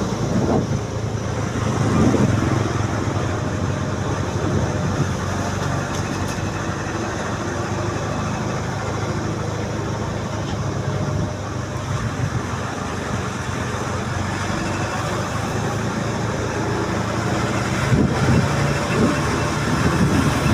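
Combine harvester engine running steadily, a continuous low drone with mechanical noise over it, swelling briefly near the start and again near the end.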